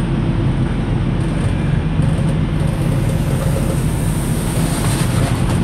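Semi truck's diesel engine running steadily as the truck is pulled forward to slide the trailer's tandem axles.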